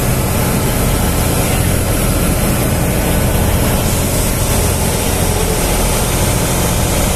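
Ferry boat's engine running steadily with a low drone, under a constant rush of water and wind.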